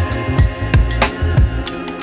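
Background music with a steady drum beat, kick and snare hits about three times a second under sustained instruments.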